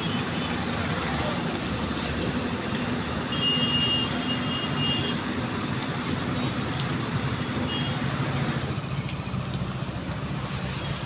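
Heavy diesel engine of construction machinery, an excavator, running steadily, with a brief thin high whine about three seconds in.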